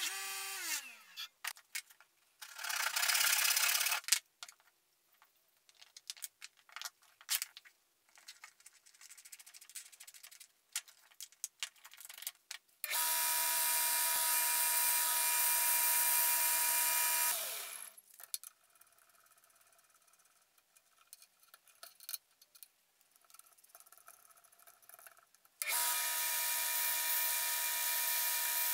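A bench grinder winding down with a falling hum, then a short harsh burst and small handling clicks. A small belt sander then runs with a steady whine for about four seconds while a small steel sprocket is held against its belt, and winds down with a falling tone. It starts up again near the end.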